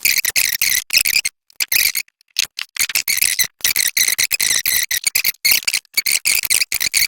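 Packaging being handled and rustled: a loud, dense, irregular crackling that keeps on and stops near the end.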